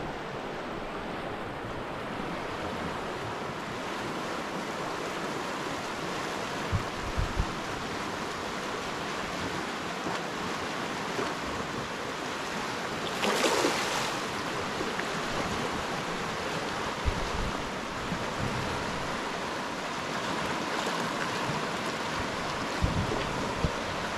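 Steady rush of running river water, with a few short low knocks and one brief louder surge about halfway through.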